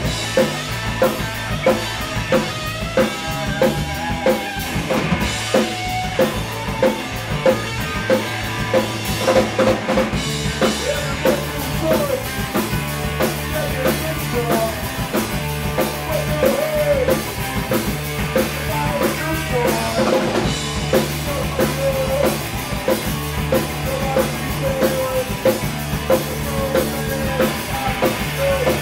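Live rock band playing loud: drum kit keeping a steady beat on bass drum and snare, under bass and electric guitar with bending guitar lines.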